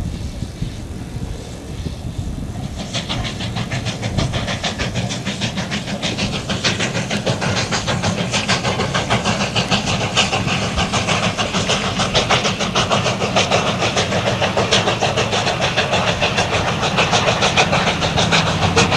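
Southern Pacific 4449, a GS-4 4-8-4 steam locomotive, working at speed with fast, even exhaust chuffs over the low rumble of the train. The chuffs come in clearly about three seconds in and grow louder as it approaches.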